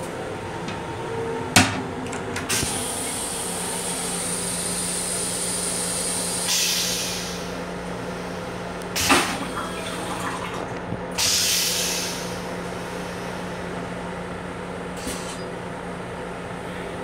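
Toilet aboard a Long Island Rail Road M7 railcar flushing: a sharp click, several seconds of high hissing, then short whooshes and another click. A steady low hum from the train runs underneath.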